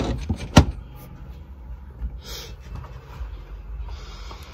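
Handling noise from a phone camera: two sharp knocks in the first second, then faint rustling and shuffling.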